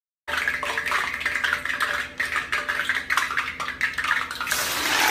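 Hot cooking oil crackling and spitting in a pot on a stove. About four and a half seconds in it turns into a much louder, steady hissing sizzle as food goes into the oil and it flares up.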